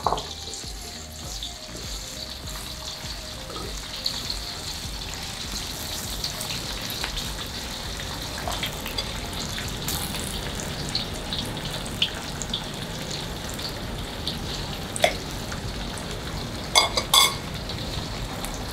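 Lap cheong (Chinese sausage) frying in hot oil in a pan: a steady sizzle. A few sharp clicks and knocks stand out, with a quick cluster of them near the end.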